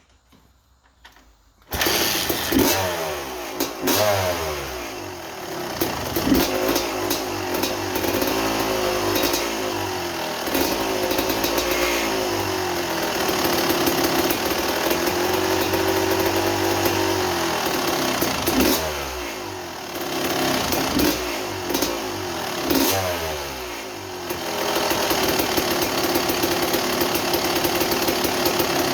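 1987 Kawasaki KX250's single-cylinder two-stroke engine, which comes in suddenly about two seconds in and is then blipped with the throttle several times, its pitch climbing and falling back to a steady idle between blips. The engine is running during idle and air-screw tuning, after its reed block was refitted the right way up to cure a very rich hard-start condition.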